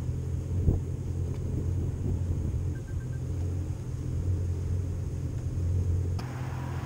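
A low, steady rumble, with a single knock under a second in; near the end it changes abruptly to a brighter, hissier sound.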